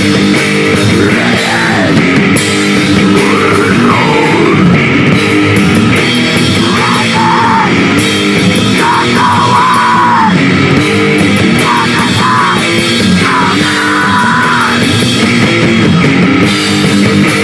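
Live heavy rock band playing loud: electric guitars and a drum kit going full on, with a melodic line bending above the riff through the middle stretch.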